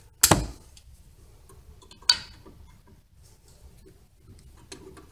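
Pliers working a pad-retaining pin in a Mercedes S550 front brake caliper: a knock about a quarter-second in, a sharp metallic click about two seconds in, then a few faint clicks near the end as the stubborn pin is worked loose.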